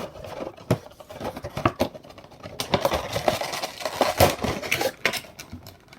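Handling noise from a boxed vinyl toy figure and its packaging: irregular small clicks, taps and crinkles.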